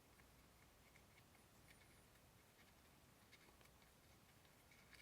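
Near silence with a few faint, short clicks and scrapes: a hex key working the grip screws on a pistol.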